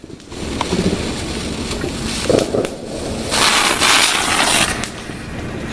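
Firework spraying a shower of sparks with a loud hiss, lasting about a second and a half from about three seconds in.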